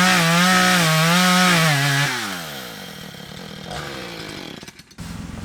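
Chainsaw running at full throttle, its pitch wavering; about two seconds in the throttle is released and the engine winds down.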